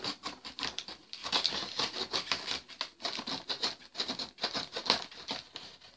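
A small knife sawing and scraping at tough plastic packaging strips, with rustling of the packaging: a rapid, irregular run of scratches and clicks.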